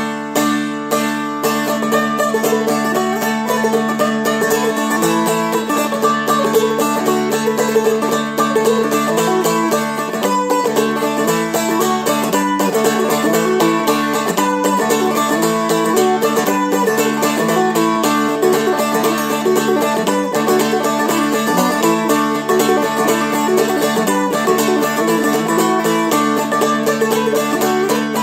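Seagull Merlin, a small fretted dulcimer-style instrument, flatpicked through a brisk Celtic jig. The melody runs over a steady droning string.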